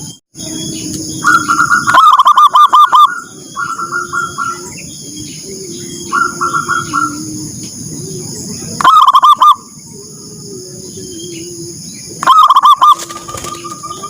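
Zebra doves (perkutut) cooing in rapid staccato phrases of repeated notes, with loud close phrases about two seconds in, near nine seconds and about twelve seconds in, and fainter phrases between them. A steady high tone sits in the background.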